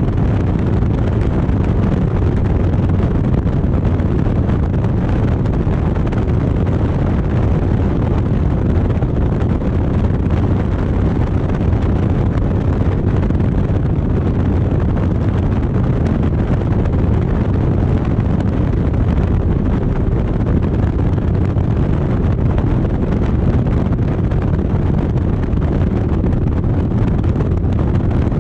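Harley-Davidson motorcycle cruising at steady road speed: low engine rumble under heavy wind rush on the microphone, unchanging throughout.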